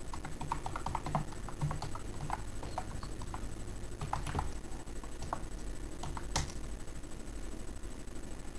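Computer keyboard typing: a quick run of keystrokes over the first four seconds or so, then one louder key press about six seconds in. A steady low hum runs underneath.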